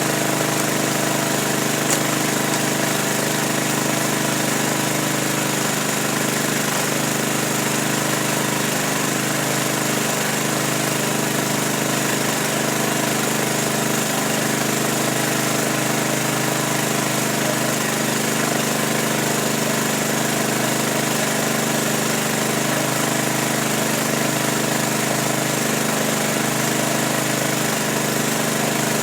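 A small motor running with a steady, unchanging hum, with a single click about two seconds in.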